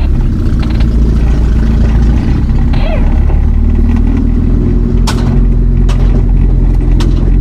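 Pickup truck's engine and road noise, a loud steady low hum heard from inside the cab while driving. Three sharp clicks or knocks come about five, six and seven seconds in.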